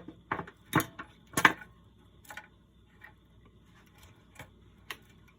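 Sharp clicks and light knocks from small tools and parts being handled at an electronics workbench. The three loudest come in the first second and a half, followed by a few fainter, spaced-out clicks.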